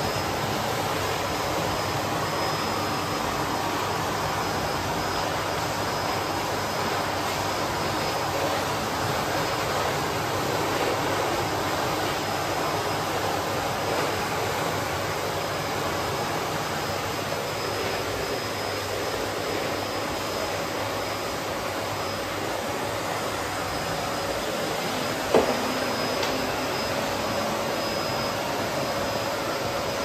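Bosch BGS21X320 bagless canister vacuum cleaner running steadily, its floor nozzle pushed back and forth over a hard floor. A single sharp clack about 25 seconds in.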